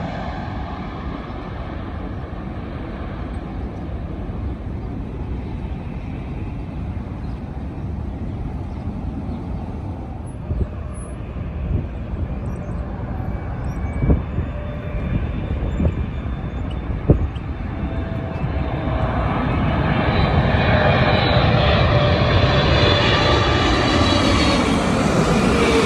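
Jet airliner engines on a landing approach. A preceding jet's roar fades at the start, then the next one builds from about two-thirds of the way in and passes close near the end, its engine whine falling in pitch as it goes by. A few sharp knocks come in the quieter middle.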